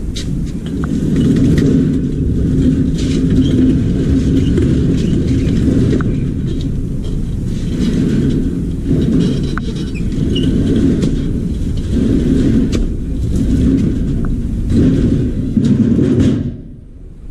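Small wheels of a loaded two-wheel hand truck rolling over rough concrete: a steady low rumble with scattered light clicks and rattles, stopping near the end.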